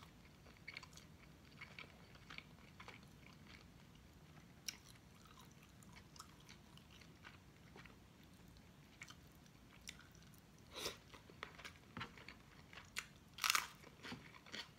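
Close-up eating sounds of a person chewing chicken adobo wings and rice: soft, wet mouth clicks and smacks throughout, with a few louder bites near the end.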